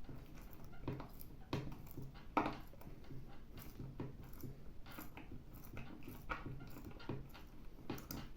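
A screw being turned by hand with the small screwdriver of a Gerber Armbar Slim Drive multitool: irregular clicks and short scraping creaks as the driver works the screw in.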